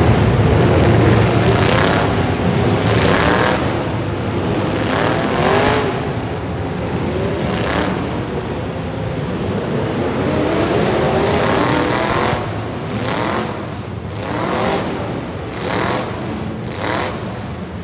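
Several demolition derby cars' engines revving up and down over one another, with repeated crashes of cars colliding.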